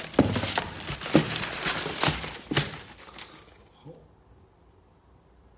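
Tissue paper crinkling and rustling, with a few sharp knocks from the cardboard shoebox, as a sneaker is lifted out. It dies away about three seconds in.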